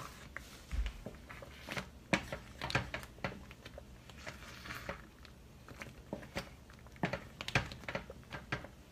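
Wooden spatula stirring and scraping thick, sticky ube halaya around a stainless steel pan, making irregular soft knocks and scrapes against the pan.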